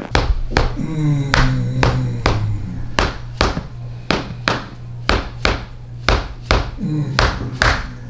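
Rubber mallet striking a plastic rod held against a person's upper back, about two to three sharp taps a second at an even pace, over background music with a steady low note.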